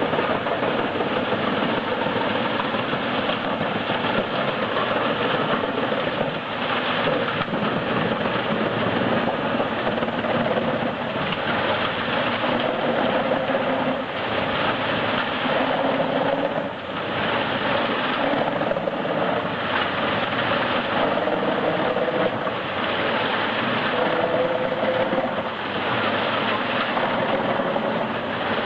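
Industrial drum wood chipper running and chipping logs, its engine pitch sagging under load and picking back up several times.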